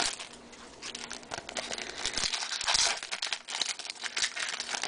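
Topps Chrome football trading cards being handled and slid through the fingers, a run of quick crisp rustles and crinkles that is busiest from about a second in until near the end.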